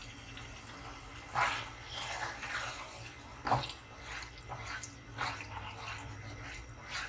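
Slotted spatula stirring yogurt into minced mutton in a nonstick frying pan: irregular wet squelching and scraping strokes, the strongest about a second and a half and three and a half seconds in.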